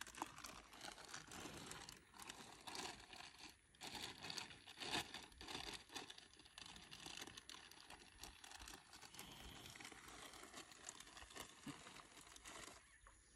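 Faint, irregular crackling and rustling that stops shortly before the end.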